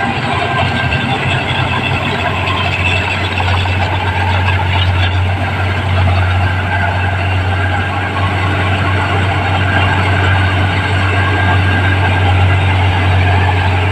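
New Holland rice combine harvester running steadily, its engine giving a constant low hum under a busy mechanical clatter and whir.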